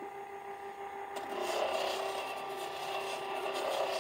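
A stone held against the spinning disc of a lapidary flat lap, grinding with a scratchy rasp that starts about a second in, over the steady hum of the machine's motor.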